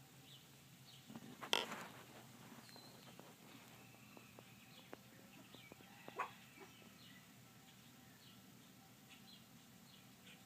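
Faint outdoor ambience of small birds chirping now and then, with two brief distant animal calls, the louder about a second and a half in and another about six seconds in.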